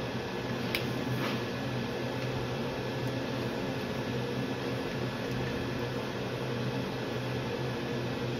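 Steady low machine hum, like a fan or pump motor, with one sharp click just under a second in and a faint scrape just after.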